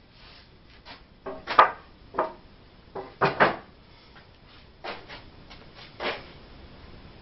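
A wooden 2x4 board is handled and set against a wooden table frame. It makes a string of separate wood-on-wood knocks and clunks, loudest about one and a half and three and a half seconds in, with a few lighter knocks after.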